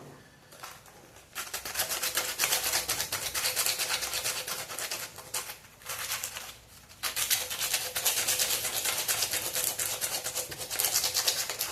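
Sandpaper rubbed by hand over the sealed surface of a model ship in fast back-and-forth strokes, in two bouts with a short pause about halfway through: sanding it smooth before its first coat of paint.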